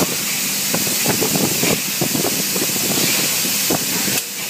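Robotic MIG welding cell: a steady hiss with irregular crackling, dropping briefly about four seconds in.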